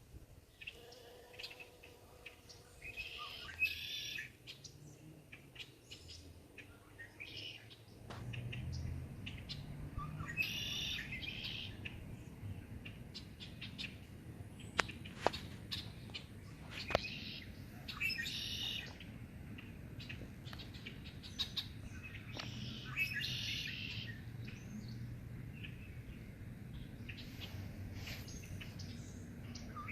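Songbirds singing short chirping phrases that recur every few seconds. About eight seconds in, a low steady hum starts underneath, with a couple of faint clicks around the middle.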